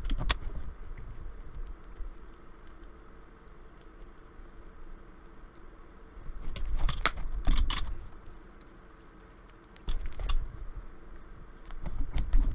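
Hands working a thick slime mixed with crumbly dried-out clay: bursts of sticky clicks and crackles, loudest around seven seconds in and near the end.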